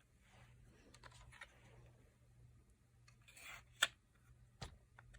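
Small cosmetic products and their packaging being handled: soft rustles and scattered light clicks, with one sharp click a little under four seconds in.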